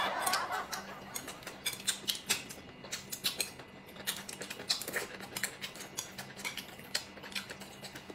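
Eating at a table: chopsticks clicking against china plates and bowls in many small, irregular taps, mixed with chewing of food.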